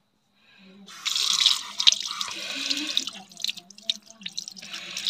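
Tap water running into a sink over hands rinsing a small plastic token, splashing and dripping. The flow starts about a second in, is strongest for about two seconds, then eases to broken splashing, with another short gush near the end.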